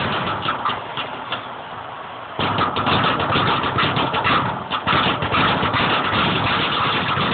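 A leather speed bag being punched in a fast, continuous rattle of strikes against its rebound board. The strikes soften about a second in and come back louder at about two and a half seconds.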